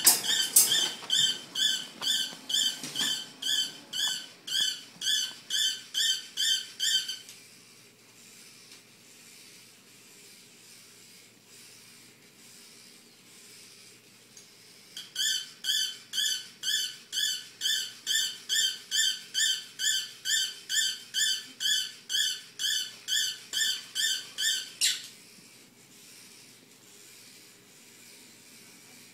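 Small toy robot dog giving short, high-pitched electronic squeaks at about two a second. A first run stops about seven seconds in, and after a pause a second run of about ten seconds ends suddenly with a click.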